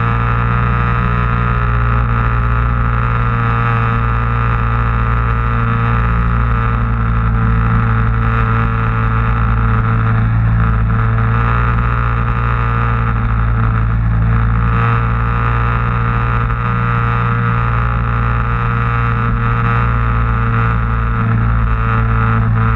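Sea-Doo XP personal watercraft running at a steady speed: a constant low engine drone with water and wind rushing past, unchanging throughout.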